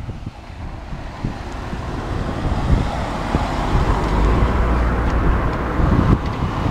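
City road traffic mixed with wind rushing over the microphone of a camera on a moving bicycle. It is a steady noise with a deep rumble that grows louder over the first few seconds.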